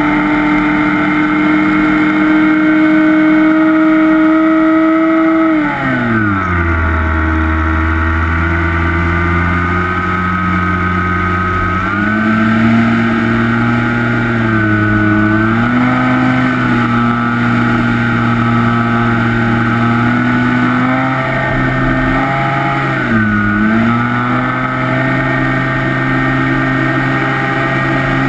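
Electric motor and propeller of a Skywalker FPV plane, heard from its onboard camera. It gives a steady whine that drops sharply in pitch about six seconds in as the throttle comes back. The pitch climbs again around twelve seconds and dips briefly once more about two-thirds of the way through.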